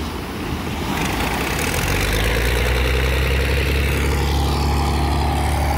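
Large diesel engine idling steadily, its low hum growing louder about two seconds in, over a steady background hiss.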